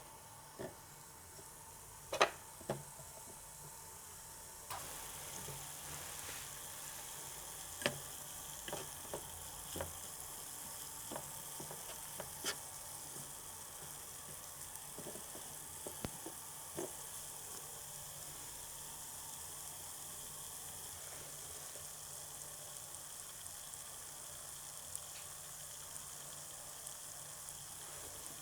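Frying sizzle sound effect: a steady hiss that starts about five seconds in and carries on, with a few light clicks and taps scattered through it.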